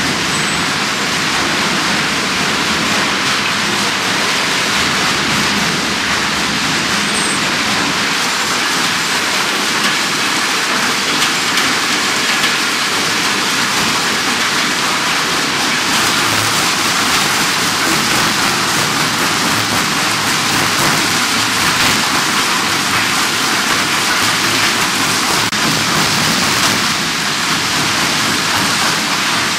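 Bulk ore apron feeder running under load: a steady, loud rushing rumble of the moving steel pans and of ore and rock spilling off the discharge end.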